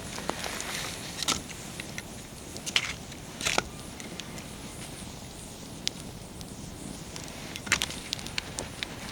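Wood fire burning: a steady low hiss with irregular crackles and sharp pops of the firewood, the loudest pops coming about three seconds in and near the end.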